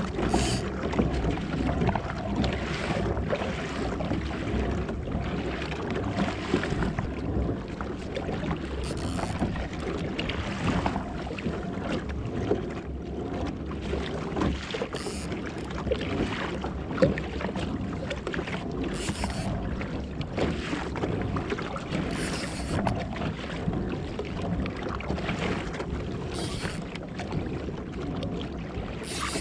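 Water rushing and lapping against a moving fishing kayak's hull, with wind buffeting the microphone and brief louder surges every few seconds.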